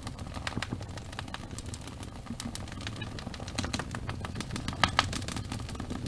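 Wood fire crackling in a fireplace: a steady low rumble of burning with frequent irregular pops and snaps, the loudest pop a little under five seconds in.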